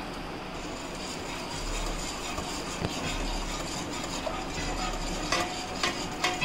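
Wire whisk stirring hot milk in a non-stick pan as custard powder mixed with milk is added, so the custard thickens without lumps. A few clicks come near the end.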